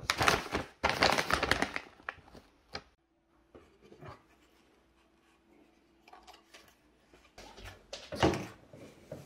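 Crinkly rustling as a puffy nylon wrap is handled, for about two seconds, then small clicks and handling sounds over a faint hum, and a short louder rustle-like burst a little after eight seconds.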